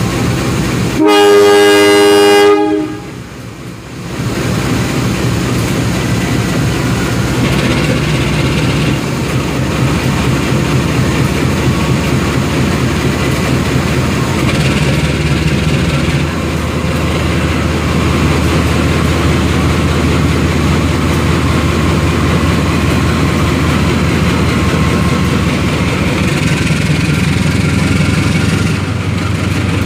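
CC 201 diesel-electric locomotive sounding its horn once about a second in, a loud chord of several tones held for about a second and a half, then its diesel engine running steadily as it pulls slowly out of the station.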